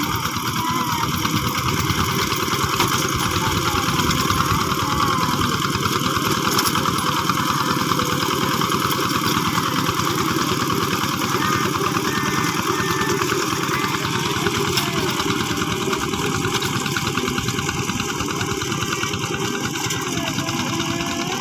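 Old two-wheel hand tractor's diesel engine running steadily at a constant speed, with a fast, even firing rhythm.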